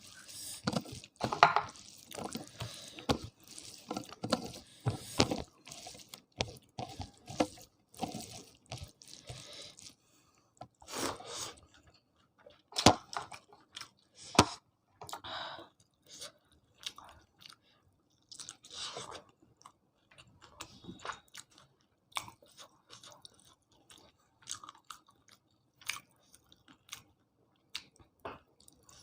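Close-up chewing of a home-cooked Indian meal: wet mouth sounds with short crunches and clicks, dense for about the first ten seconds and then more spaced out.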